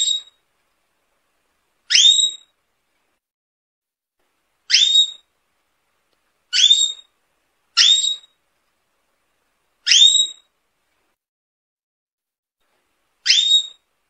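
Canary giving short rising whistled calls, about seven of them, each roughly half a second long, with silent gaps of one to three seconds between them.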